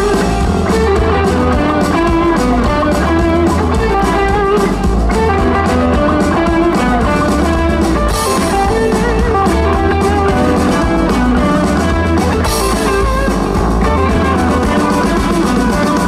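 Rock band playing live in an instrumental break between sung lines: an electric guitar carries the lead over bass and a drum kit.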